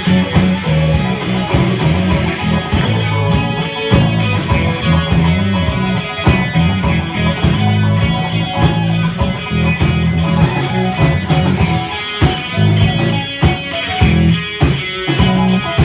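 Rock band playing live and loud, electric guitar over a heavy bass line with a drum kit keeping the beat.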